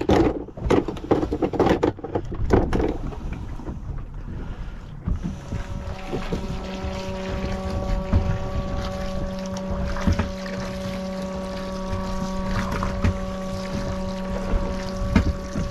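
Knocks and clatter of tools being handled in a small fibreglass fishing boat, then a steady hum from about six seconds in that holds one unchanging pitch.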